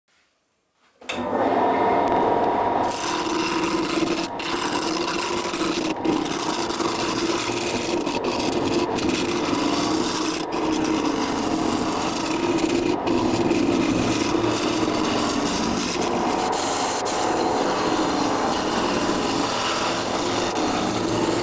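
Turning tool cutting a spinning resin-and-walnut-shell blank on a wood lathe, a steady scraping cut with a steady hum underneath, throwing off ribbon shavings. It starts about a second in.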